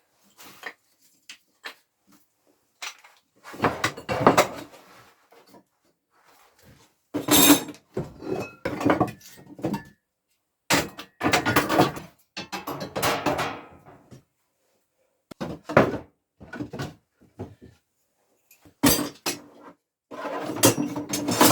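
Offcuts of wood and metal being handled and set down, heard as short bursts of knocking and clattering with silent gaps between them.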